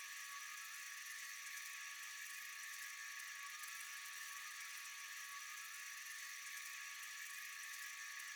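Night-time insect chorus: a steady, faint, high-pitched buzzing trill that never lets up.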